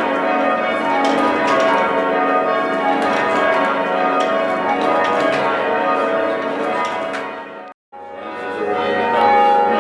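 Church tower bells rung in change ringing: many bells striking in quick, overlapping succession. The ringing cuts off abruptly near the eight-second mark and starts again a moment later.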